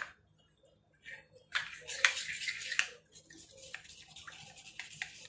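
A steel spoon stirring water into flour and cornflour in a bowl to make a thin batter: wet swishing and sloshing from about a second and a half in, then a run of light clicks of the spoon against the bowl.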